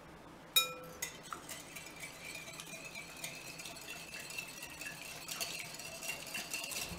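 Wire whisk beating eggs and milk in a glass mixing bowl: a sharp clink of the wires on the glass about half a second in, then a fast, continuous run of clinks and scrapes as the whisk strikes the bowl, with a thin ringing tone from the glass under it.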